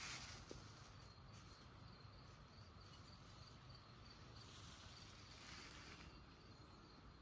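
Near silence: faint rustling at the start and again around the middle.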